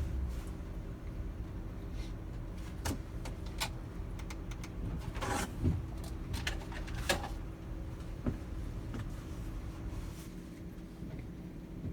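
Scattered clicks and light knocks of tools and car parts being handled, a dozen or so at irregular intervals, the strongest about five and a half and seven seconds in, over a steady low hum.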